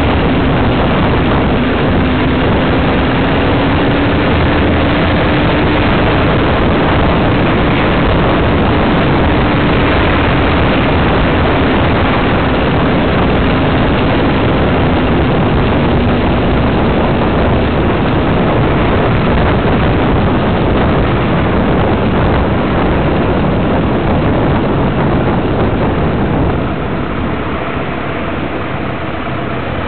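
Steady driving noise from a moving car: engine, tyre and wind noise in one dense rush, with a faint engine drone wavering in pitch. The noise drops noticeably near the end as the car slows.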